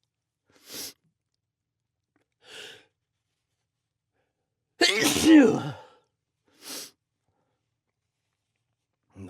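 A person sneezes once, loudly, about five seconds in, a sneeze set off by Chhinkni sneezing powder. Short breaths come before it, and one more follows.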